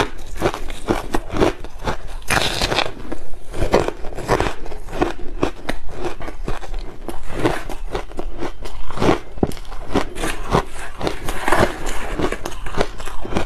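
Ice being bitten and chewed close to a clip-on microphone: frozen shaved ice and passion-fruit ice cracking between the teeth in many sharp crunches in quick succession.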